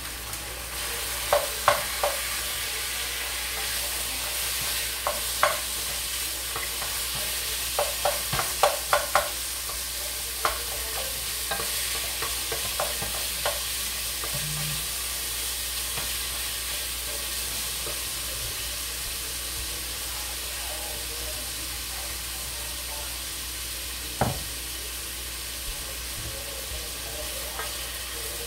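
Ground beef sizzling in a pot as a wooden spoon breaks it up and stirs it, with a steady hiss of frying. Sharp knocks of the spoon against the pot come in a scattered run through the first half, thickest about eight to nine seconds in, and once more near the end.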